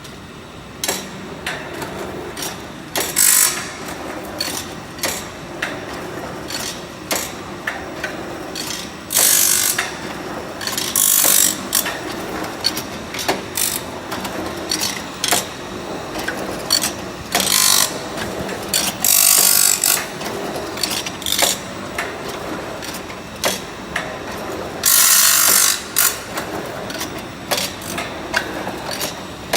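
Automatic two-sided saw-blade tooth grinding machine running: a steady hum with rapid repeated clicks of its mechanism and about six short, loud hissing bursts a few seconds apart.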